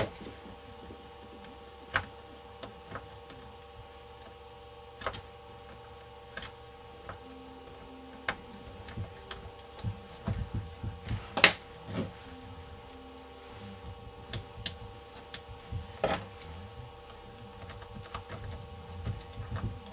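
Scattered clicks and taps of a small screwdriver and screws against the plastic and metal of a ThinkPad 600 display assembly as screws are driven back in, a few sharper knocks about 11 and 16 seconds in, over a steady electrical hum.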